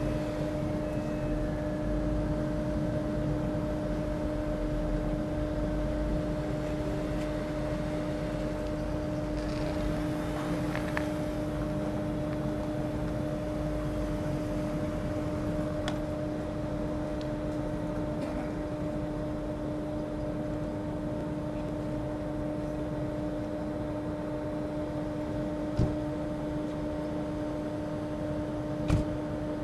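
Interior sound of a Stadler FLIRT electric multiple unit: a steady hum holding two constant pitches over a low rumble, with two short knocks near the end, about three seconds apart.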